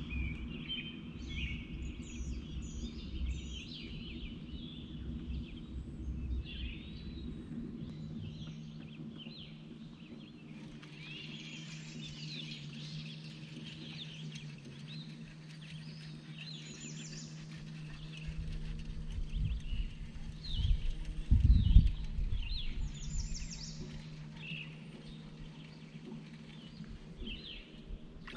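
Birds chirping and singing over the steady hum of a boat's trolling motor, its pitch shifting slightly about a third of the way in. About three-quarters of the way through come a few low rumbling bumps, the loudest sound here.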